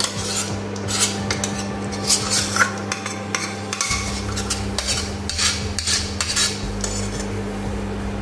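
Steel spoon scraping and clinking against metal pots as cooked khichdi is scraped out of one pot into a pan of spinach puree, in many short, uneven strokes.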